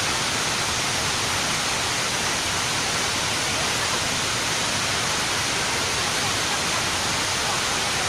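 River rapids and small waterfalls pouring over rock ledges: a steady, even rush of whitewater, mostly a high hiss.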